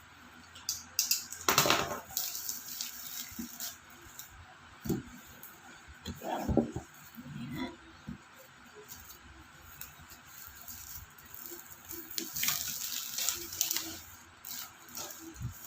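Cardboard packaging of an iPad box being handled and opened: scattered rustles and scrapes with a few light knocks, loudest about a second and a half in and again about six seconds in.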